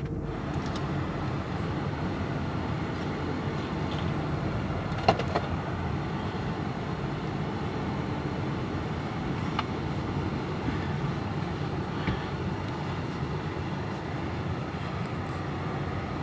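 Steady road and engine noise heard inside a moving car's cabin, with a single sharp knock about five seconds in and a few faint clicks later.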